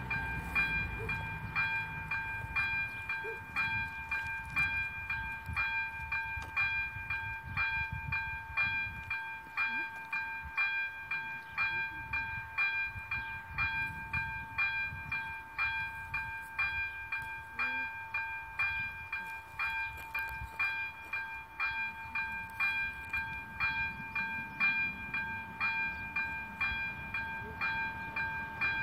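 AŽD 97 level-crossing warning bell ringing in an even, repeating ding at about two strikes a second. It starts just as the red lights begin flashing, the signal that a train is approaching.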